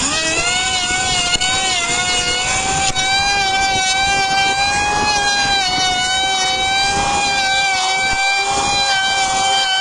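Handheld electric planer running with a steady high whine as its blades shave a wooden board; the pitch climbs just after the start and dips slightly a few times as the cut loads the motor.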